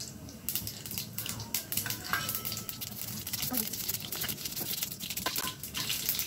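Mustard seeds and urad dal frying in hot oil in a kadai: a steady sizzle with scattered, irregular crackling pops. This is the tempering stage, the seeds spluttering in oil that is hot enough.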